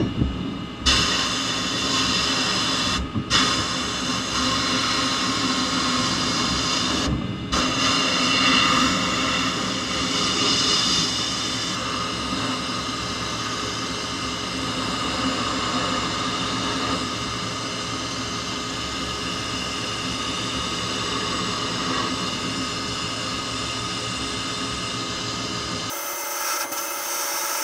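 Sandblasting gun in a blast cabinet hissing steadily as abrasive strips the paint off a vintage pressed-steel Tonka toy part. The blast cuts out briefly twice, about 3 and 7 seconds in.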